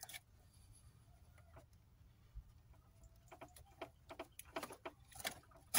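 Faint, short clicks and rattles of a plastic wiring connector being worked loose by hand from the radiator cooling-fan relay, quiet at first, then a cluster of small clicks in the second half.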